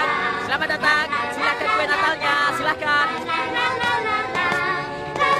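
Several voices singing a tune together, choir-like.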